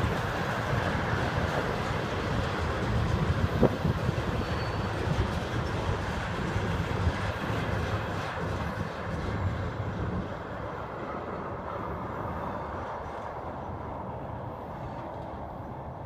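Empty railroad tank cars rolling past on steel wheels and rails, a steady rumble with one sharp clack about four seconds in. The sound fades as the end of the train moves away.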